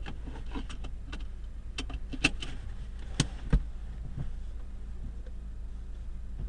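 Lada Vesta running with a steady low rumble and a cluster of sharp knocks and clunks from under the hood, the last and deepest about three and a half seconds in. The owner takes the knocking for a broken right engine mount.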